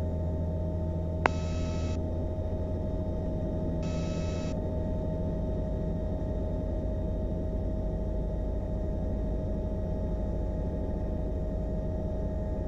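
Bell 505 helicopter cabin noise heard through the intercom during takeoff: a steady hum and low rumble. A sharp click comes about a second in, and two short buzzy tones come about a second and about four seconds in.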